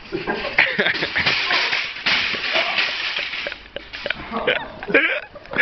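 Wire shopping trolley rattling loudly over paving as it is pushed at speed, then a run of sharp clatters and knocks as it tips over and crashes, with people's shouts mixed in.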